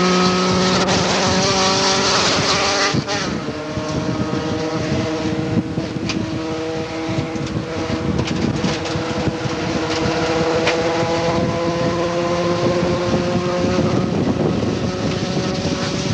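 A 1988 Honda CRX Si's four-cylinder engine under racing load, heard from inside the cabin: held at high revs, dropping sharply about three seconds in, then climbing slowly in pitch through a long pull before easing near the end.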